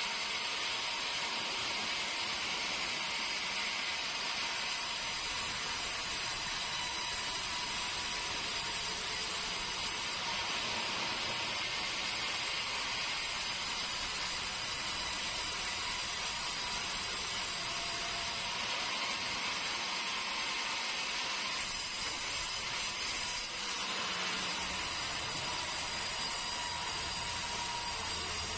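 Sawmill saw cutting keruing hardwood: a steady, unbroken hissing whine with faint constant tones.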